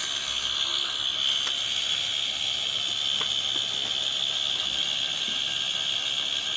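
Fan pump running, water gushing from its outlet and churning into a field drainage channel. A steady high-pitched chirring runs over the water noise, with a few faint clicks.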